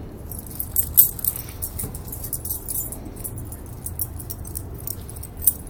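Small metal tags on a running Chihuahua's collar jingling in quick, irregular bursts as it sprints back and forth.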